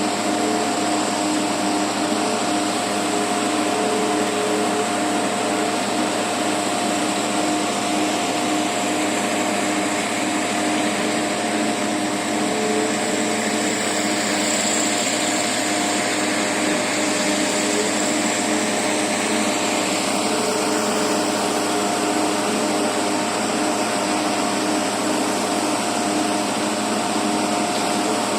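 Excavator's motor running steadily, a constant machine whine over a broad hiss with no change in pitch.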